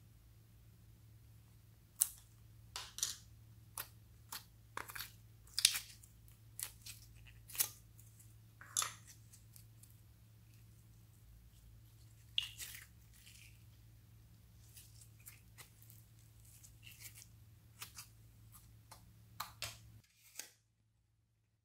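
Glittery pink slime being squeezed and kneaded by hand, giving irregular sharp crackles and pops over a steady low hum. The sound cuts off suddenly near the end.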